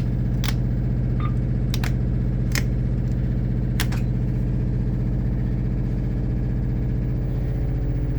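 A 4400-watt generator runs with a steady hum. About seven sharp clicks, some in quick pairs, come in the first four seconds as breaker switches are flipped on.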